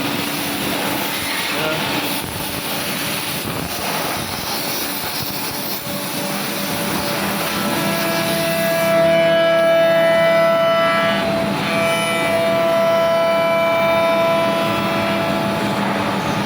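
Bacci Artist TGV 2600 CNC woodworking machining center running. A dense mechanical hiss gives way, about halfway through, to a steady whine with several overtones.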